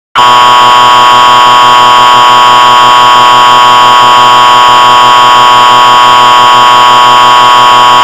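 Emergency Alert System two-tone attention signal, the loud, harsh alarm tone that precedes an emergency broadcast. It starts suddenly and holds one unbroken pitch for about eight seconds, then cuts off abruptly.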